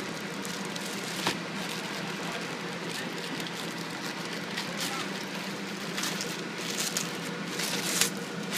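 Plastic packaging bag crinkling, with scattered clicks as it is handled and opened, over a steady low hum.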